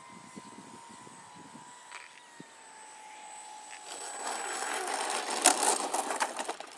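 Electric motor of a Dynam Sukhoi SU-26M radio-controlled plane whining steadily and slowly dropping in pitch. About four seconds in the plane hits the gravel field and scrapes and tumbles across it in a rough, clattering crash, with its loudest knock a little later, before dying away.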